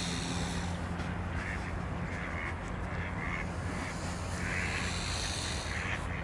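Mallard ducks quacking on the water: a run of short calls, then a longer call about four and a half seconds in.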